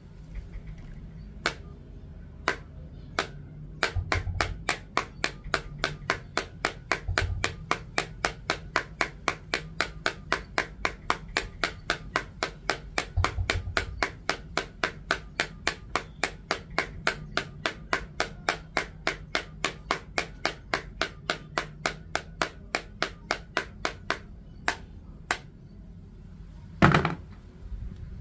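Sharp clicks repeating evenly, about three a second, over a low background, with a few dull thumps. One louder knock comes near the end.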